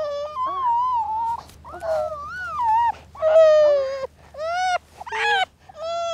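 Newborn baby crying: a string of high, wavering wails, each up to about a second long, with short breaths between.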